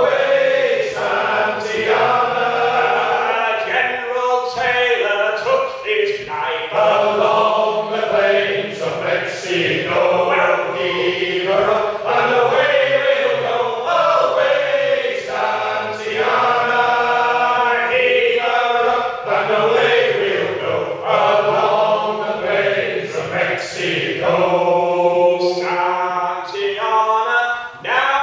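Male shanty group singing a sea shanty unaccompanied, several voices together, with a short break for breath near the end.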